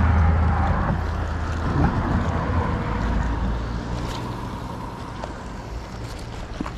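Wind buffeting the microphone over choppy water, strongest in the first couple of seconds and easing off, with a few light clicks, one near the end.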